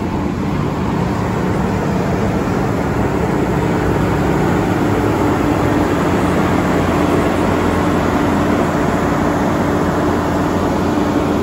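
Large trailer-mounted containerized generator set running, a steady, pretty loud engine drone with a constant low hum.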